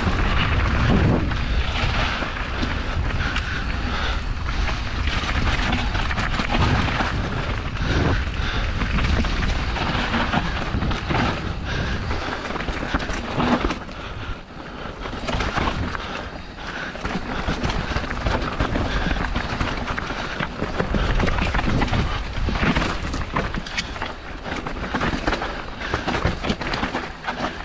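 Mountain bike descending a rough dirt and rocky singletrack: tyres running over dirt and stones with constant knocks and rattles from the bike over bumps, under a heavy low wind rumble on the camera microphone. It eases off briefly about halfway through.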